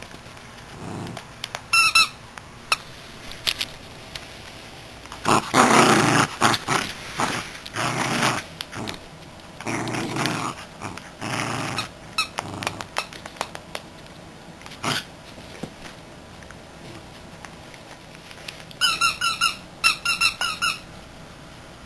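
A miniature schnauzer chewing and wrestling a squeaky plush squirrel toy: the squeaker squeaks briefly about two seconds in and again in a quick run of squeaks near the end, with louder noisy bursts of play in the middle.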